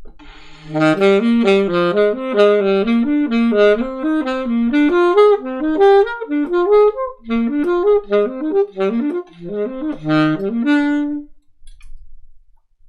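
Saxophone playing a fast technical-study run, with quick even notes climbing and falling in a repeating pattern. After a brief break partway through, it ends on a short held note.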